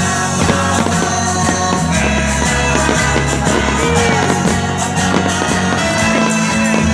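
Loud rock music with guitar and a steady bass line.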